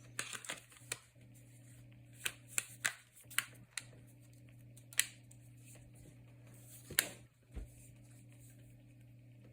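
Sharp plastic clicks and taps of a cell phone being handled on the bench after reassembly, in small clusters, with single louder clicks about five and seven seconds in, over a steady low electrical hum.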